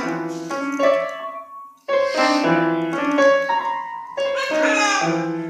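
Piano music: a melody of steady notes in three short phrases, starting suddenly from silence.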